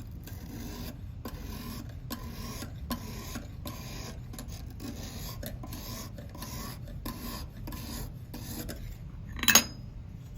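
Oiled Lansky 280-grit sharpening hone stroked along a clamped knife edge, short rasping passes about two a second. A sharp clack about nine and a half seconds in.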